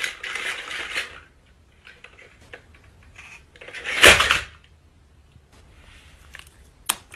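Plastic toy dinosaur clattering as it topples onto a wooden floor about four seconds in, the loudest sound here, with small clicks and taps before and after and a sharp click near the end.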